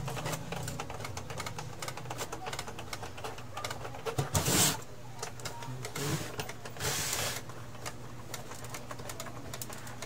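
Plastic and metal parts of an opened Epson L3110 inkjet printer clicking and rattling as the mechanism is handled by hand: rapid small ticks at first, then two louder scraping shuffles about four and seven seconds in as the printer body is shifted. A steady low hum runs underneath.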